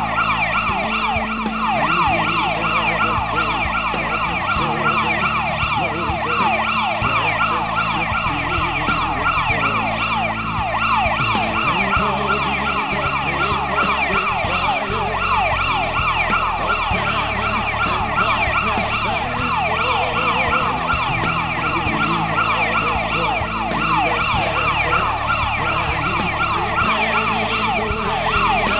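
Ambulance siren sounding continuously in a fast yelp, a rapid run of repeated falling sweeps in pitch.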